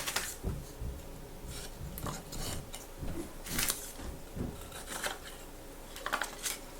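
Small scroll-sawn wooden pieces being handled and fitted together: scattered light scrapes and clicks of wood on wood as the legs are slotted into a puzzle-style reindeer.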